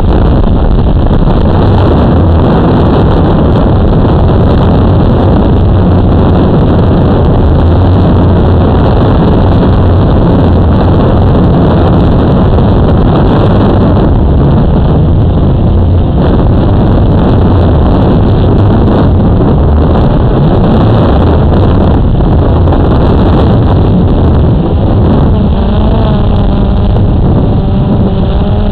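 Loud, steady whir of a quadcopter drone's motors and propellers, picked up by the camera on the drone itself. Near the end the motor whine wavers up and down in pitch.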